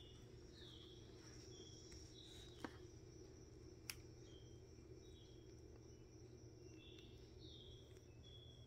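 Near silence: a low room hum with faint, short high chirps repeating every half second or so, and two sharp clicks about two and a half and four seconds in.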